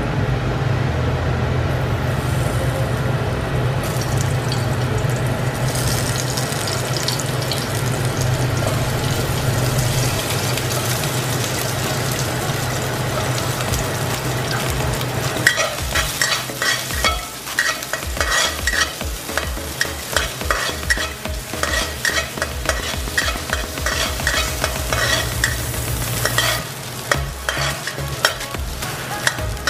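Sliced garlic and ginger sizzling in hot oil in a stainless steel wok, over a steady low hum. About halfway through, a spatula starts scraping and clicking against the wok in quick, uneven strokes as they are stir-fried.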